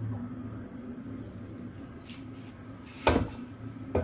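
A low steady hum, then a sharp clunk about three seconds in as the plastic air fryer basket is picked up and handled.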